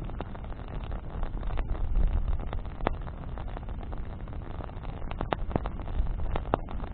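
Bonfire of burning branches crackling: scattered sharp pops, several close together in the second half, over a steady low rumble.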